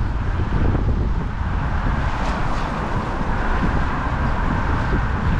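Wind buffeting the microphone, an uneven low rumble over a steady rushing hiss.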